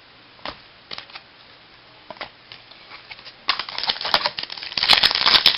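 Trading cards being handled: a few light clicks, then from about three and a half seconds in a louder, dense run of rustling and clicking as the cards are shuffled through.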